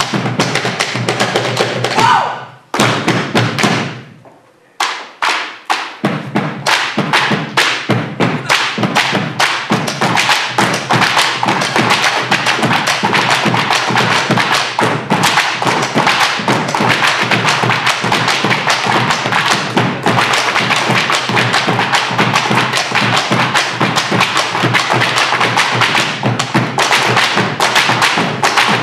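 Malambo zapateo: boot heels and soles stamping and tapping on a wooden stage in fast, driving rhythm, with bombo drums. After a short lull a few seconds in, the stamping runs on as a dense, unbroken rattle of strikes.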